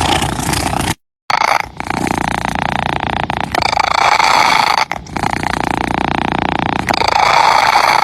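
Domestic cat purring close to the microphone: a continuous buzzing purr that swells and dips with each breath, every one to three seconds. It cuts out completely for a moment about a second in.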